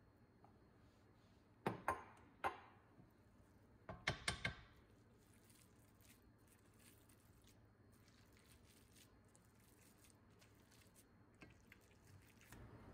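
Kitchen utensils knocking against cookware: three sharp clacks about two seconds in, then a quick run of four more about four seconds in.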